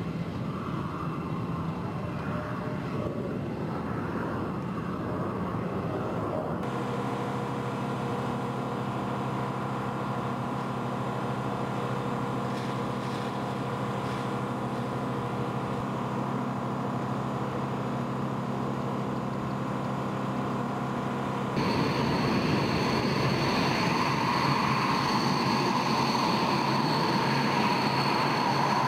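Mirage 2000 fighter jet engines running at ground idle, a steady whine over a rumble. The sound changes abruptly twice. It is loudest, with a strong high whine, in the last several seconds as a jet taxis.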